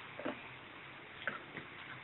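A few faint taps of a metal spoon against a wok while stir-frying: two close together near the start, then a few more scattered ones later.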